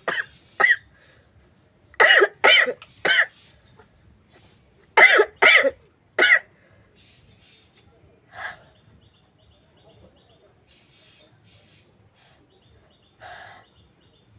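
A woman's fits of short explosive sneezes and coughs, set off by grass poked into her nostrils. The bursts come in quick runs of two or three, about two and five seconds in, with one more just after, then two fainter ones later on.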